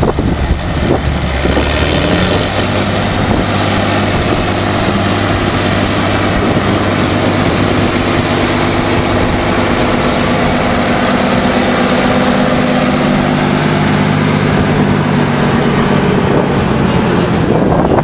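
Rába Steiger 250 articulated tractor's diesel engine revving up about a second and a half in, then running hard and steady under load as it tows a loaded trailer on a chain. It eases off near the end.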